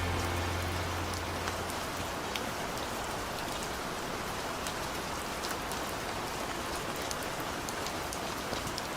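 Steady rain falling, an even hiss flecked with the ticks of individual drops. The last low bass note of a song fades out under it in the first two seconds or so.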